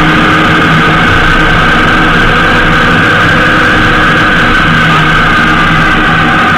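Honda GL1800 Gold Wing's flat-six engine and road noise while riding at a steady pace, heard through a cheap action camera mounted on the bike. Loud and steady, with a steady high-pitched whine over it.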